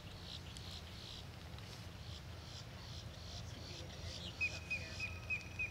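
Wildlife chirping in a steady rhythm, about three to four high chirps a second. About four seconds in, a louder run of short, slightly lower notes comes in at the same quick pace, over a low steady rumble.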